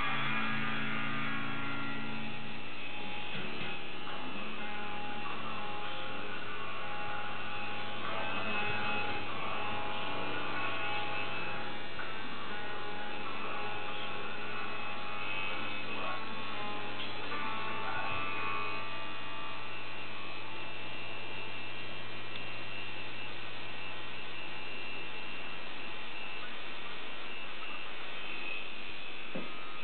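Coil tattoo machine buzzing steadily as it runs while tattooing skin. Music is heard in the first couple of seconds and then fades under the buzz.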